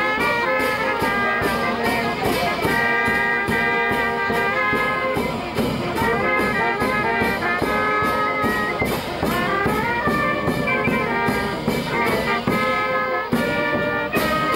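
Brass band playing a lively tune with trumpets and trombones over a steady beat.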